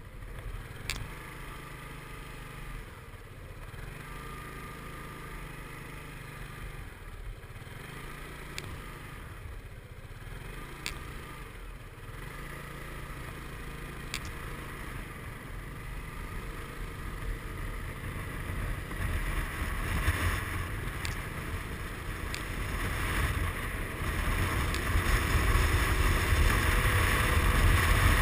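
Suzuki Burgman 400 maxi-scooter's single-cylinder engine running at low riding speed, with a few sharp clicks along the way. In the last ten seconds the scooter picks up speed and the engine and wind noise grow steadily louder.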